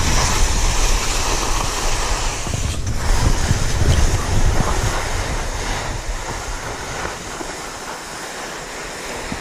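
Skis hissing and scraping over granular spring corn snow during a fast descent, with wind buffeting the microphone; it dips briefly about three seconds in and eases off near the end.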